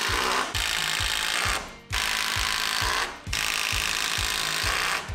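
Milwaukee M18 FUEL cordless impact driver hammering 88 mm tech screws through a steel joist bracket into timber. It runs in three bursts with short pauses about one and a half and three seconds in.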